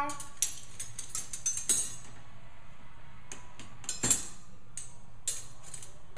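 Dishes and metal cutlery clinking and clattering in a string of sharp, ringing knocks as they are taken out of a dishwasher, the loudest about four seconds in.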